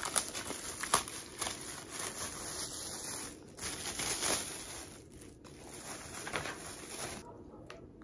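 Plastic bag crinkling and rustling as it is pulled off an electric kettle's plastic power base, dying away about seven seconds in.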